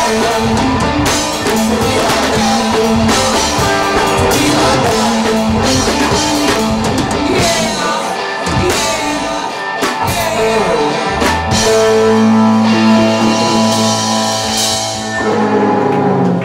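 Live rock band with electric guitars, bass, drum kit and a male singer playing loud, closing the song on a long held chord near the end.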